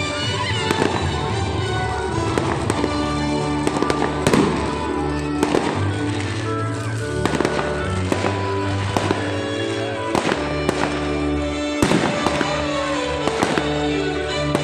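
Fireworks going off overhead, a string of sharp bangs and crackles at uneven intervals, over continuous music.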